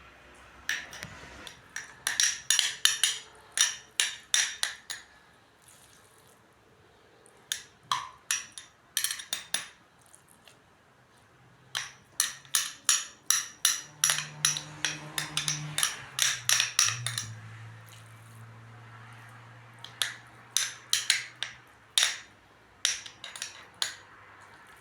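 Quick runs of clinks and taps of glass and kitchen utensils, several a second, typical of tomato paste being spooned into glass bottles and jars. A faint low hum comes in for a while partway through.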